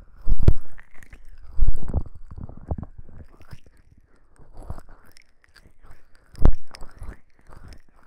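Fingers rubbing and squeezing the silicone ears of a binaural microphone, a close, scratchy rubbing with three louder muffled swells when the ears are pressed: about half a second in, near two seconds, and about six and a half seconds in.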